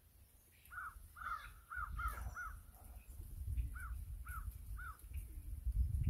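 A crow cawing: a quick run of about five caws, then three more after a short pause, with a low rumble building underneath.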